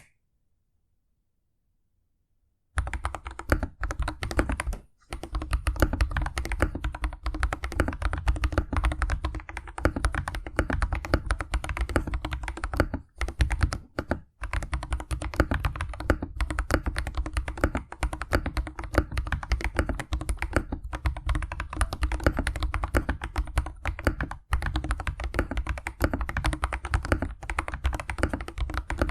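Fast typing on a Royal Kludge RK100 mechanical keyboard with lubed and filmed MMD Holy Panda tactile switches, PBT keycaps and foam in the plate and case: a dense, continuous run of keystrokes with a few short pauses. The typing starts after about two and a half seconds of silence.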